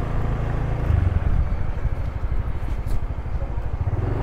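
Road noise from a moving vehicle: a steady low rumble with a hiss above it.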